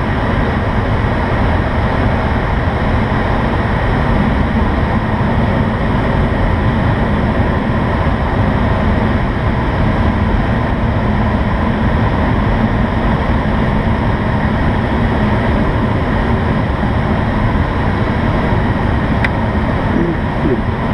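Steady rush of air streaming over the canopy of an IS-28B2 two-seat glider in flight, heard from inside the cockpit.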